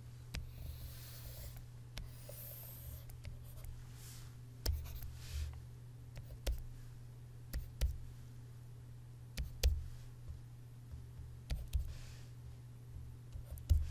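A stylus drawing on a tablet: two longer scraping strokes in the first few seconds, then short sharp taps, often in quick pairs, every second or two as small crosses are marked. A steady low hum runs underneath.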